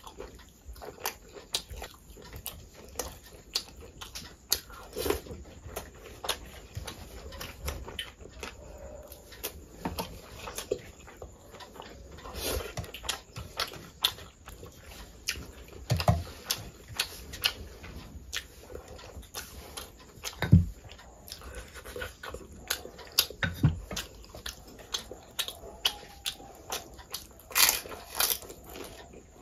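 Close-miked eating sounds: wet chewing, lip smacks and the squish of rice and curry being mixed and scooped by hand, a busy run of irregular clicks. A few dull thuds come in the second half.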